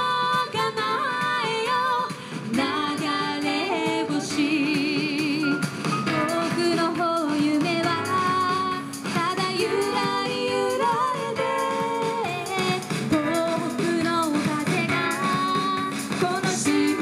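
Two women singing an Okinawan folk-style song live with musical accompaniment, holding notes with a wavering vibrato.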